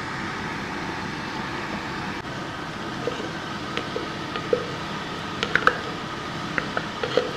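Blended shallot, garlic and candlenut paste going into hot oil in a wok, sizzling steadily. From about three seconds in, a wooden spoon scraping the paste out of a glass blender jar gives short clicks and taps, some of them ringing briefly.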